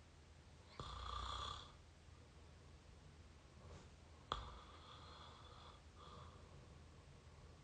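Close-up open-mouth snoring, quiet: one snore about a second in, then another about four seconds in that starts with a sharp click and runs on for about a second and a half, followed by a short weaker one.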